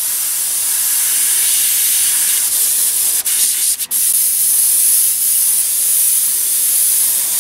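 Airbrush spraying thinned black paint: a steady, high hiss of compressed air through the gun. It stops twice for a moment, a little after three seconds and just before four seconds in.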